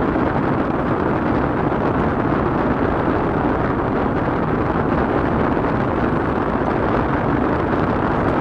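Steady rushing noise inside a car's cabin as the car creeps forward at low speed, the engine running underneath, with no breaks or sudden sounds.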